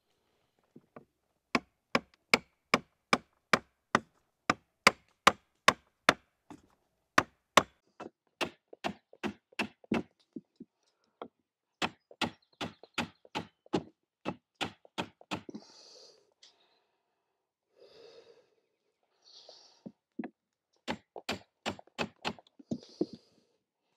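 Hatchet head knocking a bent wooden rib down into place inside a birch bark canoe: runs of sharp wooden knocks, about two to three a second, with a pause of a few seconds and a second run near the end. Driving the ribs in stretches the bark hull out.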